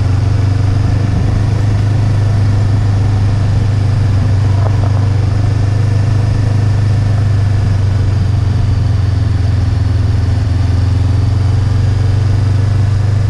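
Motorcycle engine running at a steady pace while being ridden, a constant low drone with road noise over it.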